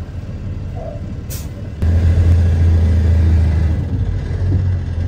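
Vehicle engine running, a low steady drone heard from inside the cab. A short hiss comes a little over a second in, and the drone jumps abruptly louder just under two seconds in.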